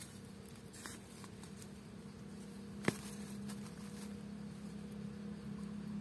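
Dry forest soil being dug and scraped with a bamboo-handled digging tool and pushed aside by hand: soft scratching and patter of earth, with one sharp tap about three seconds in. A steady low hum runs underneath and grows slightly louder toward the end.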